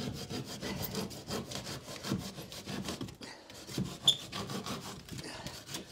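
Handsaw cutting plasterboard in short, rapid strokes, the blade held tight against the timber frame of a window opening. There is a brief pause a little past halfway.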